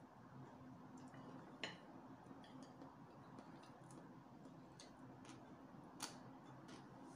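Near silence with faint sounds of eating noodles with chopsticks: a scatter of soft clicks and ticks, the clearest about one and a half seconds in and again about six seconds in, over a low steady hum.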